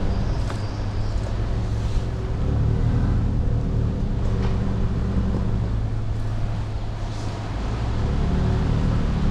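Toyota Tundra pickup heard from inside the cab, driving slowly along a dirt off-road trail: a steady low engine and drivetrain drone, with a few light clicks and knocks from the trail.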